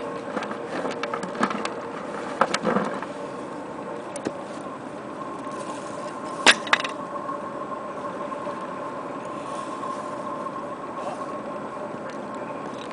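Small boat's outboard motor running steadily at low speed out on the river, a constant hum. A few sharp close knocks and clicks sound over it in the first three seconds, and the loudest one comes about six and a half seconds in.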